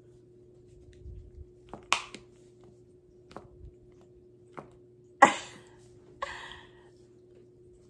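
Handling noise: a few scattered clicks and rustles of an object being handled and put on, the loudest about five seconds in. Under it runs a faint steady low hum.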